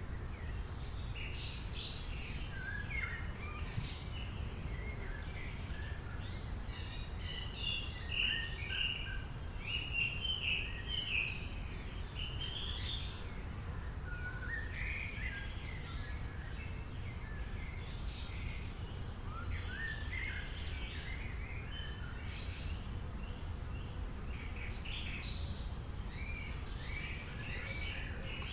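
Several birds singing and chirping at once, a busy chorus of short high calls, over a steady low background rumble.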